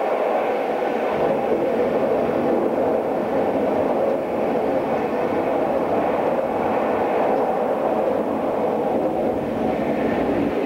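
Steady running noise of a passenger train heard from inside the carriage: an even rush of wheels on rail, with no distinct clicks or changes.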